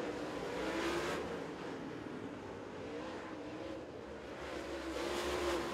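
Super Late Model dirt race cars' V8 engines running at speed around the oval, the engine note rising and falling. The sound swells as cars pass about a second in and again about five seconds in.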